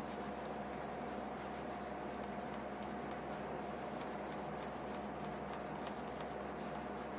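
Cotton wool pad rubbed back and forth over the polished leather of a side-elastic shoe, a soft, steady rubbing during mirror-shine polishing, over a constant background hum.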